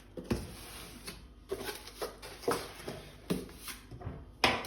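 Blender parts being handled: a string of light, irregular knocks and rubs, with a louder knock near the end.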